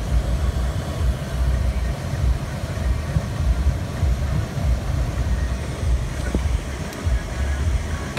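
Toyota Tundra's 5.7-litre V8 idling in Park at roughly 800 to 1,000 rpm, a steady low rumble heard from inside the cab.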